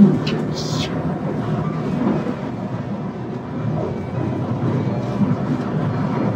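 A heavy truck driving, with a steady low rumble of engine and road noise. There is a sharp knock right at the start and a short hiss just under a second in.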